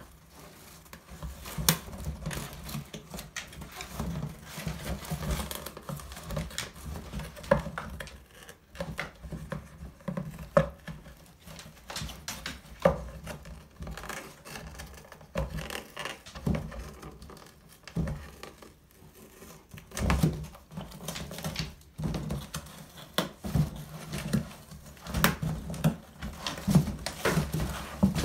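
A dog rummaging with its head in an open cardboard box: irregular rustling, scraping and bumping of the cardboard flaps, with scattered knocks.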